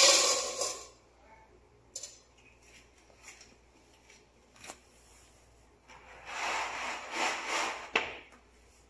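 Rubbing and scraping as a cat tugs at the tail of a large whole fish lying in a stainless steel bowl, with the fish shifting against the bowl. It comes in two bursts, a short one at the start and a longer one of about two seconds later on, with a few sharp clicks in between.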